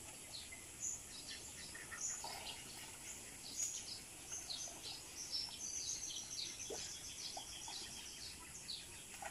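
Small birds chirping, many short high chirps scattered throughout, over a faint steady high hiss.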